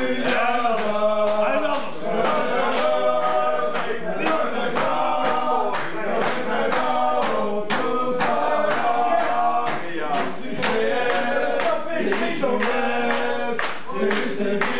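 A group of male voices singing a chant together over a steady beat.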